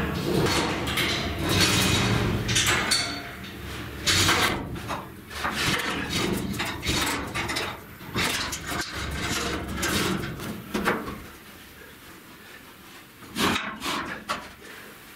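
Irregular metal clanks, knocks and scrapes, with the rattle of a hand chain hoist's chain during the busy first part. It quietens, then a couple of sharp knocks come near the end. The clatter is heard inside a bare steel hull.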